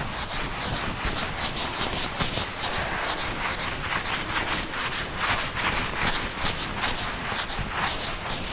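Writing on a board: quick scratchy strokes, several a second, keep up throughout.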